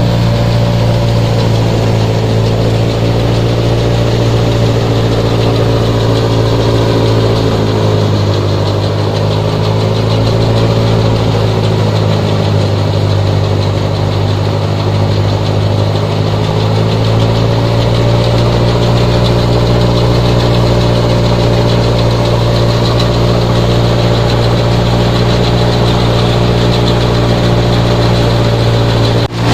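Tractor engine running a wheat thresher, a steady low hum that slows a little twice in the middle and picks back up.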